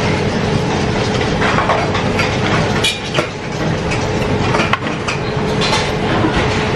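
Steady mechanical rattle and hum of a conveyor-belt sushi bar's belt, with a few sharp clicks over it. Close-up chewing of a crisp fried gyoza dumpling.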